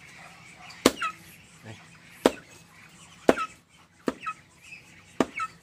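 Knife chopping against a wooden tree stump while cutting a chicken's wing feathers: about five sharp strokes, roughly a second apart. Short falling calls from chickens come between the strokes.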